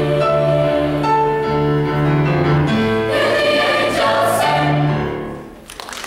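Mixed high-school choir singing the closing phrase of a song, moving through held chords that die away about five and a half seconds in. Audience applause starts just as the singing ends.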